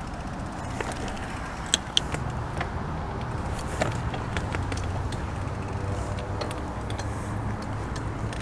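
Steady low rumble with scattered light clicks and rattles, two sharper clicks about two seconds in: a Huffy bicycle setting off, heard through a head-mounted GoPro with wind on its microphone.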